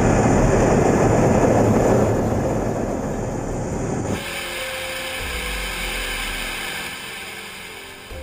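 Loud rushing roar of a Boeing F/A-18E/F Super Hornet jet for about four seconds, then an abrupt cut to a quieter, steady hum with a thin high whine, as heard inside the fighter's cockpit.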